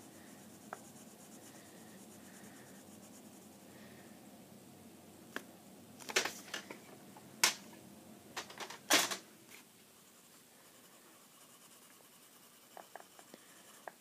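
Coloured pencil faintly scratching on paper as it shades, broken about halfway through by a handful of sharp clicks and knocks over a few seconds.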